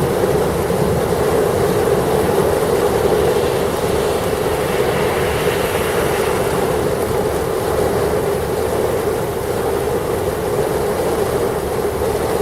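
Heavy thunderstorm rain with gusty wind, a loud, steady rushing noise.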